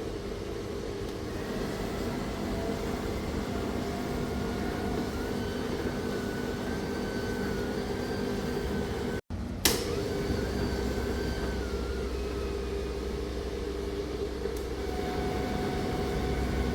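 Indesit condenser tumble dryer running, with a steady motor hum and a faint whine, as its new drain pump pumps condensed water up into the water container. The sound drops out for a moment about nine seconds in, then a short click, and the same running resumes.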